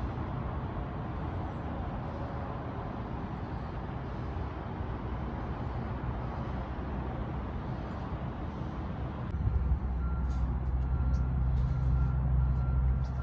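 Steady engine and outdoor traffic noise. About nine seconds in it changes at once to a louder, steady low engine rumble with faint short high beeps repeating over it.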